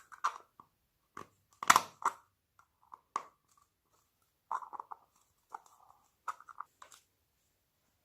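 Slime being squished and kneaded by hand, giving irregular short sticky pops and squelches. The loudest pop comes a little under two seconds in.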